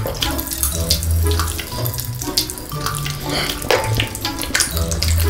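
Background music with a bass line, overlaid with many short wet clicks and smacks of chewing.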